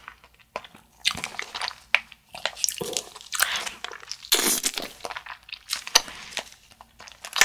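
Biting and chewing TikTok jelly fruit candies, irregular crunches and clicks with short pauses between bites.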